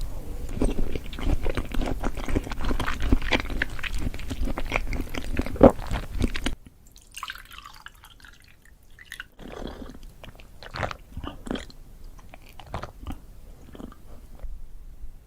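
Close-miked chewing and crunching of food, with wet mouth sounds: dense and loud for about the first six and a half seconds, then after a sudden cut, quieter and sparser chewing and smacking.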